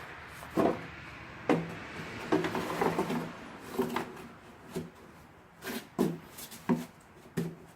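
Hard plastic engine cover being handled and fitted over a Ford F-150 EcoBoost engine: a series of irregular knocks and clunks as it is set and pressed into place.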